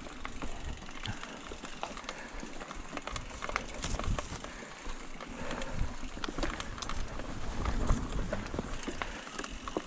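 Mountain bike rolling over rough dirt and stony ground: tyre noise with a constant scatter of sharp clicks and rattles over a low rumble.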